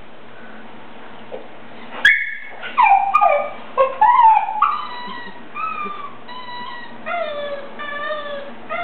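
Border collie whining and yipping, worked up by a vacuum on the TV. After about two seconds of quiet comes a run of high cries that fall in pitch, then a string of short, repeated whines.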